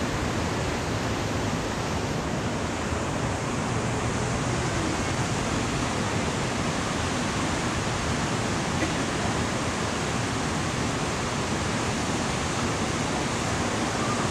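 Steady rushing of water cascading down a man-made rock waterfall, an even unbroken roar.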